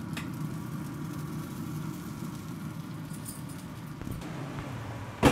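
Grilla Alpha Connect pellet grill running with a steady low mechanical hum that thins out about four seconds in. A single sharp knock lands right at the end.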